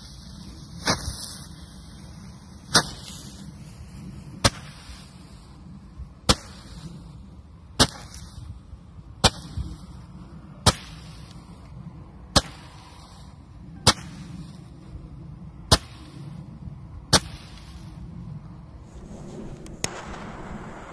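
Hand-held Feeria Roman candle firing its shots one after another: about eleven sharp pops, roughly one every one and a half seconds, with a fainter last pop near the end.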